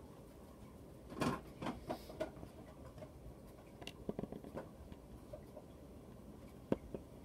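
Small plastic toy pieces, a baby butterfly figure and its plastic chrysalis, handled on a tabletop: soft clicks and taps in two short flurries, then one sharper click near the end.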